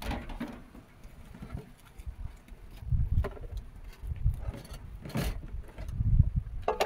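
Large pots and dishes being washed by hand: irregular knocks and scraping, with a metal pot clanking near the end and ringing briefly.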